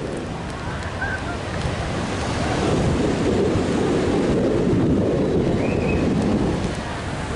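Wind buffeting the microphone: a low, uneven rushing rumble that swells in the middle. Two faint short chirps can be heard, one about a second in and one near the end.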